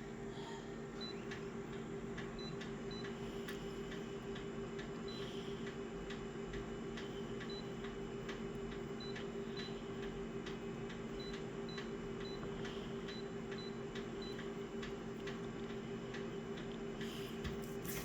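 A printer or copier running: a steady two-note hum with a light, regular ticking throughout.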